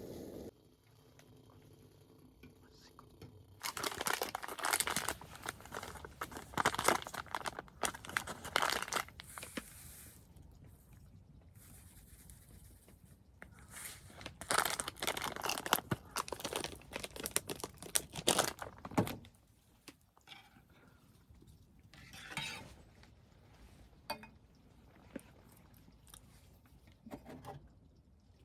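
Packaging being crinkled and torn open by hand, in two long spells of crackling rustles, followed by softer scattered handling noises.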